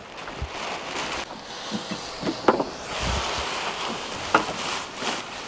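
Wind and sea noise on the deck of a sailboat rolling in choppy waves, with the slack spinnaker bouncing and luffing. Two sharp knocks come about two and a half and four and a half seconds in.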